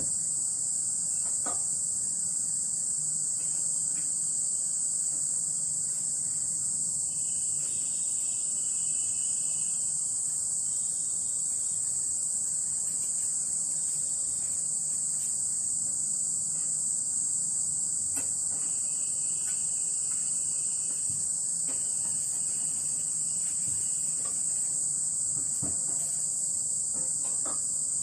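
Steady high-pitched insect chorus, like crickets, with fainter short chirping lines under it.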